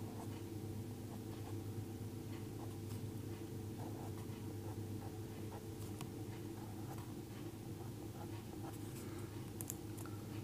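Pen writing on paper: faint scratches and small taps as short strokes are drawn, over a steady low hum.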